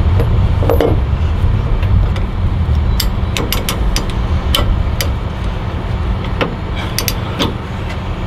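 Steady low rumble of an idling truck engine. From about three seconds in come a run of sharp metallic clinks from a tie-down chain being handled and adjusted.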